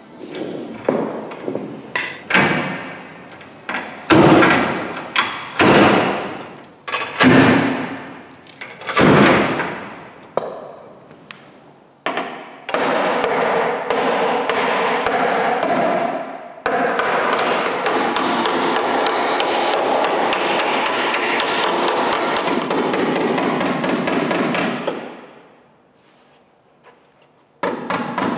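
Hammer blows on a car's steel body panel, the inner wheel arch and sill being straightened. About one ringing blow a second at first, then a long run of rapid, even hammering that stops a few seconds before the end, with one last strike near the end.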